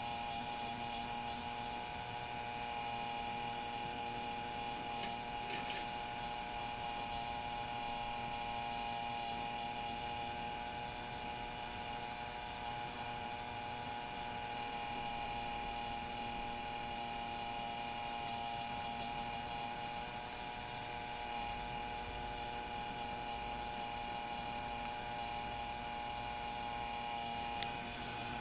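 Model chairlift's small electric drive running, a steady hum made of several fixed whining tones as it pulls the cable and chairs around. A single short click near the end.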